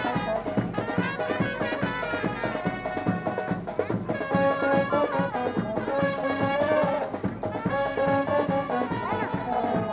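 Indian wedding brass band playing a melody in held notes on trumpets and other brass, over drums keeping a steady beat.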